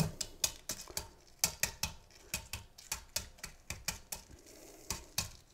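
Shell of a cooled hard-boiled egg being cracked all over to loosen it for peeling: a rapid run of sharp, light clicks, about three or four a second.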